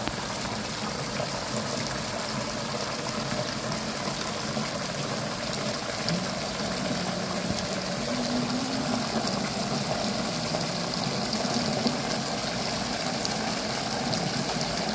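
Water pouring steadily from a hose into the vessel of a polyester yarn package-dyeing machine, splashing over the yarn cones as the machine is filled with water before dyeing.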